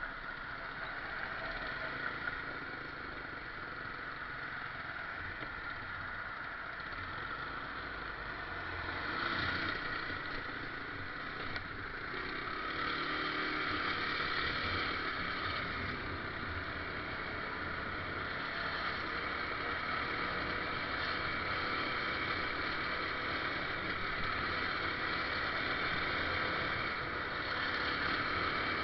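A motor vehicle running, with steady engine and road noise.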